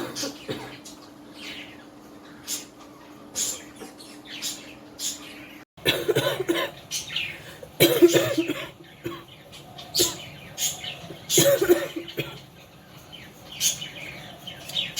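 A woman coughing in a series of coughs. They start small, then come louder from about six seconds in. It is a real cough from illness, not a put-on one.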